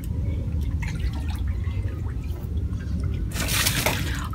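Water splashing and sloshing in a child's inflatable paddling pool, with one louder splash about three and a half seconds in, over a steady low rumble.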